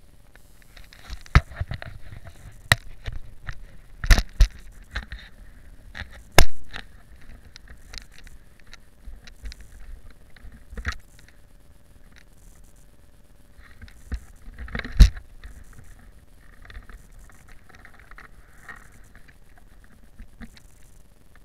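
Handling noise on an action camera: a series of sharp knocks and scrapes as it is moved about on its mount, with a low wind rumble underneath. The loudest knocks come about a second and a half in, around four and six seconds in, and once more about fifteen seconds in.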